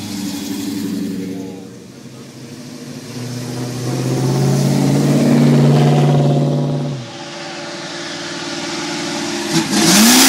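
Classic American muscle cars (a Chevelle, a Mustang fastback and a Nova) driving past in turn, their engines accelerating. The loudest pass builds over a few seconds and drops off suddenly about seven seconds in, and near the end an engine revs sharply.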